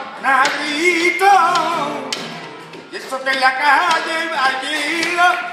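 Flamenco singing: a solo voice drawing out long, wavering, ornamented phrases, with hand-clapping and taps keeping time around it.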